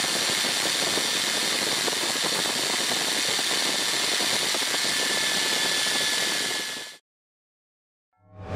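Drill motor spinning a buffing wheel, running as a steady whir with a thin high whine, as a knife blade is buffed to a polish against the wheel. The sound fades out about seven seconds in, and music starts to swell near the end.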